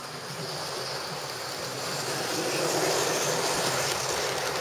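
OO gauge model train running past on the track, a steady rolling whirr of wheels and motor that grows louder toward the middle and eases slightly near the end.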